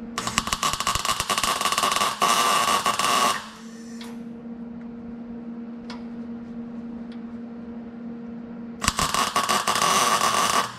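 Welding arc crackling while the rear axle's spring perches are tack welded to the axle tube: a burst of about three seconds, a pause of about five seconds with a steady low hum, then a second burst of about two seconds.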